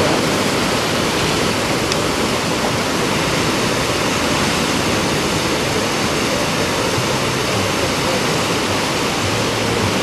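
Steady rushing roar of sea surf on a rocky shore, without break or change.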